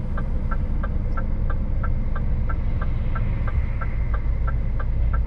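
Heard from inside a truck cab: the Scania's diesel engine idling with a low steady rumble, and a turn-signal relay ticking about three times a second. The rumble swells near the end as another lorry passes close alongside.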